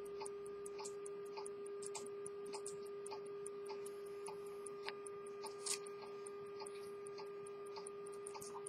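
Swiss quarter-repeater pocket watch movement ticking with a fast, even beat, faint over a steady hum.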